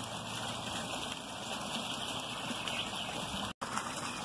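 Steady rush and splash of water from a small garden-pond waterfall spilling into the pond. The sound cuts out for an instant about three and a half seconds in.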